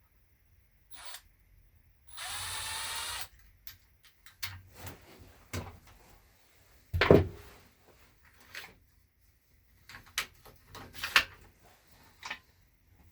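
A power drill runs briefly for about a second, spinning up as it starts, followed by scattered clicks and knocks of small tools and parts being handled, the loudest knock about halfway through.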